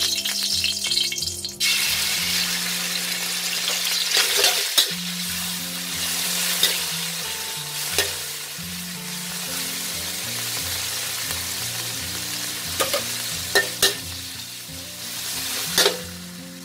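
Marinated chicken pieces sizzling in hot oil in a metal wok, the sizzle jumping up about a second and a half in. A metal spatula stirs them, scraping and clicking against the pan now and then.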